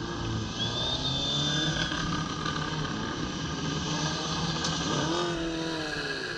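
Racing superbike engines running and revving in a pit lane, several pitches rising and falling at once. About five seconds in, one engine revs up sharply and holds as a Kawasaki ZX-10RR superbike pulls away. A thin high whine sounds from about half a second in, for just over a second.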